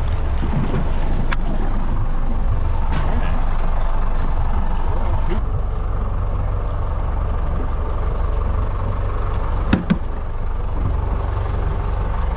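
Boat engine idling with a steady low rumble, and one sharp knock about ten seconds in.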